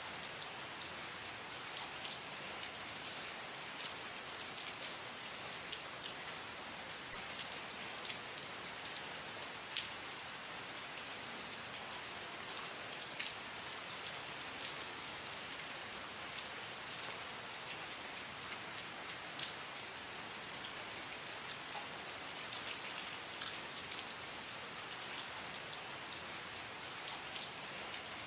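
Steady rainfall: an even hiss of rain with many individual drops ticking sharply on a hard surface throughout.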